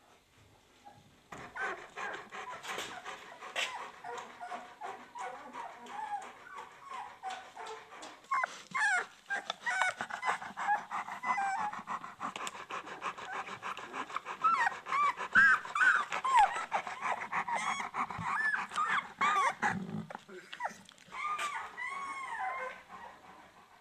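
Young puppies squealing and whimpering in many short, high, rising-and-falling squeaks in quick succession. They begin about a second in, grow louder about eight seconds in, and break off briefly before a few more near the end.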